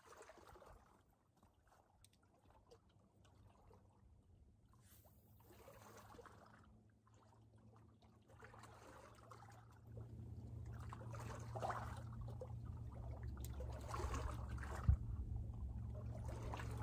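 Faint lake water lapping against a rocky shore in soft, irregular washes, with a low steady rumble joining about ten seconds in and one short click near the end.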